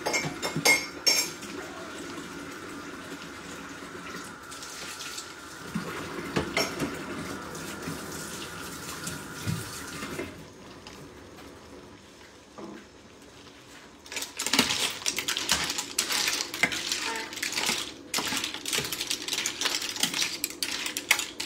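A metal ladle stirring and scooping mussels and clams in a stainless steel pan, with shells clattering against each other and the pan. There are a few clinks at first over a faint steady hum that stops about ten seconds in, then a quieter stretch, then several seconds of steady clattering and scraping from about fourteen seconds in.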